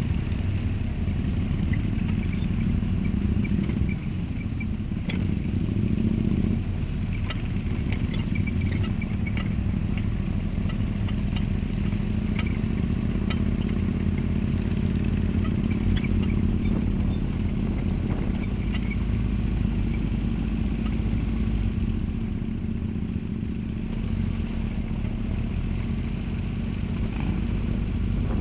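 Motorcycle and trike engines running steadily, with scattered light clicks.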